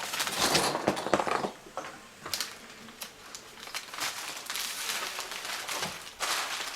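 Plastic bubble-wrap packaging rustling and crinkling as the new laptop LCD panel is handled and unpacked, in uneven bursts that are loudest in the first second and a half and again near the end.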